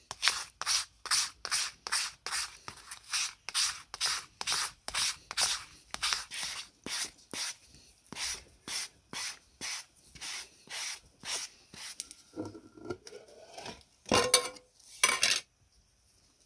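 Rhythmic back-and-forth rubbing strokes by hand, about two a second, then two louder, longer scrapes near the end.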